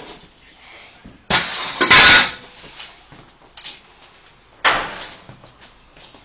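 Loud crashing impacts of a forced entry into a house. A crash comes about a second in, followed at once by a louder hit, then a small knock and another crash a few seconds later.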